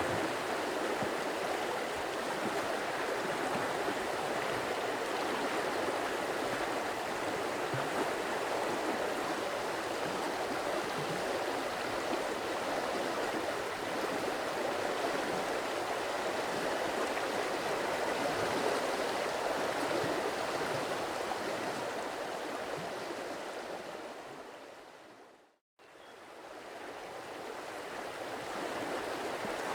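Stream water running steadily. About 25 seconds in it fades to silence and then fades back up, as at the seam of a looped recording.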